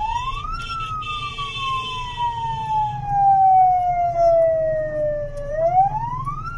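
A military pickup's electronic siren wails through its roof loudspeaker. Its pitch rises, slides slowly down for about five seconds, then climbs again near the end, over the low rumble of the engine and traffic.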